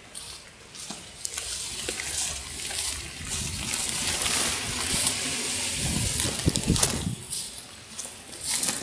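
Dry silvergrass stalks rustling and brushing against the phone as it is pushed through the tall grass, a dense crackling hiss that builds up about a second in and dies down near the end, with a few low handling thumps around the middle.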